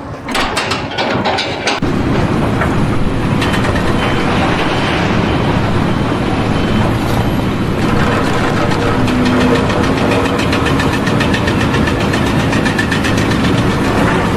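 An engine running steadily, with a low hum, as from a truck or heavy machine.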